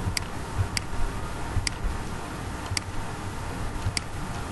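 Computer mouse clicking five times, single sharp clicks spaced about half a second to a second apart, over a faint low hum.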